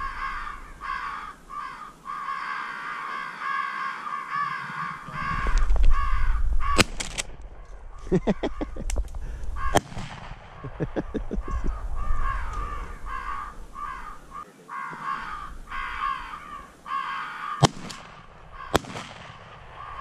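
Crows cawing in a steady, repeated run of calls, broken by a few sharp shotgun blasts, two of them close together near the end.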